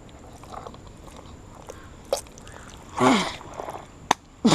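Deep pond mud squelching and sucking: a few short wet squelches, the loudest two about three seconds in and near the end, as a foot or a buried flip-flop is worked loose.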